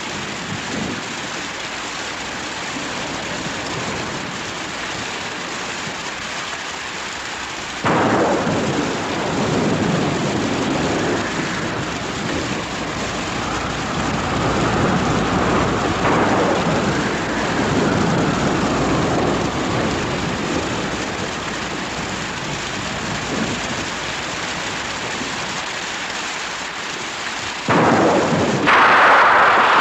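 Steady rain, with a long rolling rumble that starts suddenly about eight seconds in and dies away slowly, and a second sudden, louder rumble near the end.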